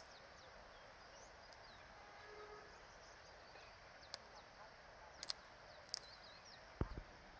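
Faint rural outdoor ambience: a steady high insect drone with a few faint bird chirps. Several short clicks come in the second half, and one low thump near the end.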